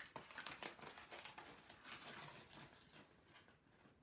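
Paper coffee bag rustling and crinkling as it is opened and handled: a dense run of small crackles that dies away near the end.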